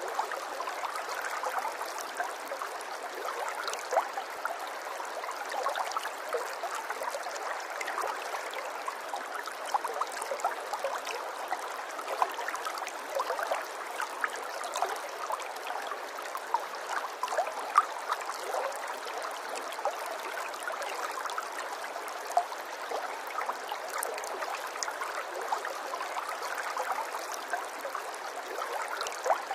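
Running water, like a small stream, flowing in a steady babble full of small irregular plinks and splashes.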